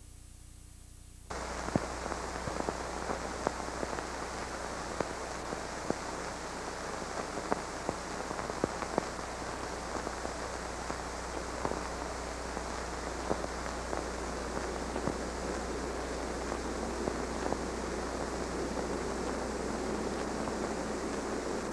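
Steady hiss dotted with frequent crackles and pops, the surface noise of an old 16mm film soundtrack, starting abruptly about a second in and growing slightly louder near the end.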